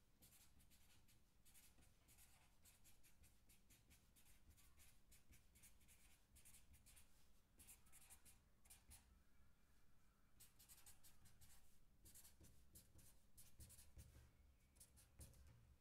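Felt-tip marker writing on paper: faint, quick scratching strokes that come in short runs with brief pauses between them.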